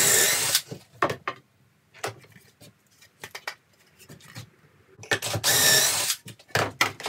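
Cordless drill with a stepped pocket-hole bit boring pocket holes in pine boards held in a Kreg pocket-hole jig, in two short bursts about five seconds apart. Between the bursts come the knocks and clicks of the jig being clamped and the boards being handled.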